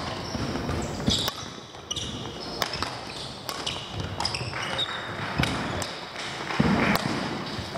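Badminton rally: irregular sharp hits of rackets on a shuttlecock and short squeaks of court shoes, echoing in a large sports hall, with fainter hits from neighbouring courts.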